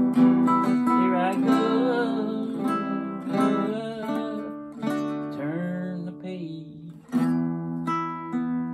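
Steel-string acoustic guitar played with a pick: ringing strummed chords and picked single notes. The sound dies down around six seconds in, then a fresh strum comes in at about seven seconds.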